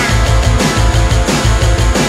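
Loud post-punk rock music with a steady, pulsing bass line repeating several times a second under dense guitar or synth layers.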